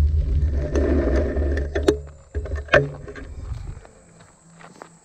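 Low rumble of wind and ride vibration on a handlebar-mounted camera as a mountain bike rolls over a gravel trail, with a few sharp knocks from bumps. The rumble drops away a little before four seconds in, leaving faint clicks and crunching.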